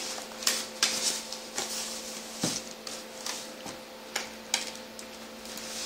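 Scattered light clicks and knocks from an HP Pavilion dv5 laptop being handled and turned over on a glass-topped desk.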